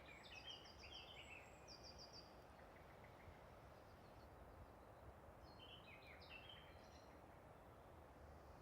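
Near silence: faint outdoor background hiss with two short clusters of soft bird chirps, one at the start and one about six seconds in.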